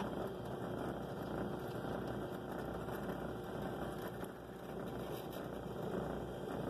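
Drill press running steadily, its motor humming as a small drill bit bores down into the end of a wooden block.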